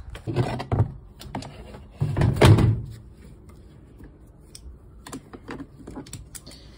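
Hands unclipping plastic clips and pulling a mesh laundry-net cover off a plastic storage-case compost bin: knocks and rustling, with the loudest thump about two seconds in and a few light clicks after.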